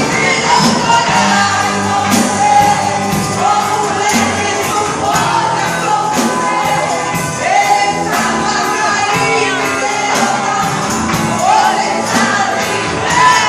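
Live praise band playing a worship song with singers, over a steady drum beat.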